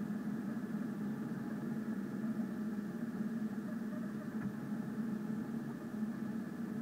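Rostock delta 3D printer running a print: its stepper motors and fans hum steadily as the print head traces the thin walls.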